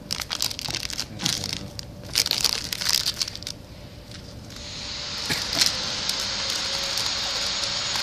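Clear plastic flow-wrap film crinkling as a hand handles the sealed bags. From about four and a half seconds a steady hiss comes up and holds, over a faint steady hum.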